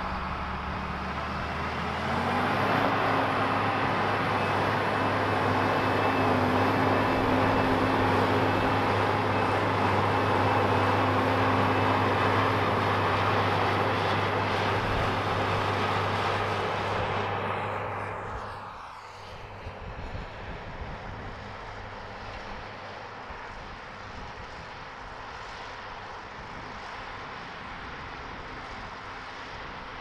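Rába-Steiger 250 articulated tractor's diesel engine working under load as it pulls a subsoiler through the soil, a steady drone that rises in pitch and loudness about two seconds in. After about seventeen seconds it fades and runs on fainter, as from much farther off.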